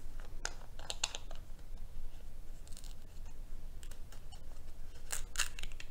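A few short, light clicks and scrapes in small clusters, about a second in, briefly near the middle, and near the end, over a low steady hum.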